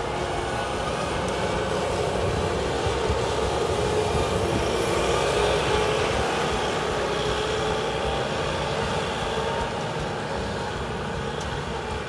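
Diesel engine of heavy earthmoving equipment running hard as it digs in the mud, with a steady drone that rises a little and swells around five seconds in before settling.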